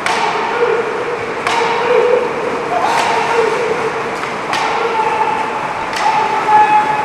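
Sharp knocks about once every second and a half, each with a ringing tail in a large echoing hall, over a background of voices.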